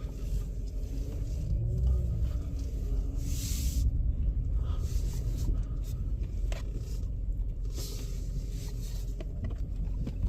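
Car engine running steadily with a low rumble, its pitch briefly rising and falling about two seconds in.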